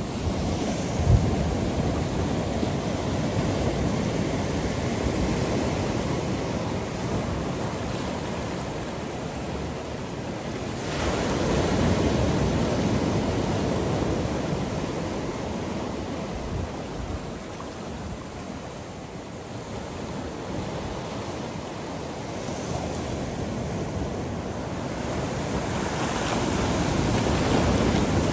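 Ocean surf washing over a rocky reef shore, a steady rushing noise that swells as waves come in, about 11 seconds in and again near the end, when seawater pours down a channel across the rock flat. Wind buffets the microphone, with one short thump about a second in.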